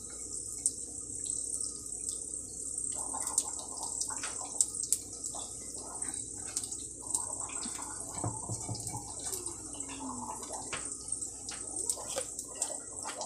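Egg rolls deep-frying in hot oil in a cast-iron skillet: a steady sizzle with frequent small pops and crackles.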